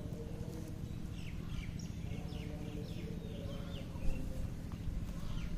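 Birds chirping, a busy run of short quick calls, over a steady low hum.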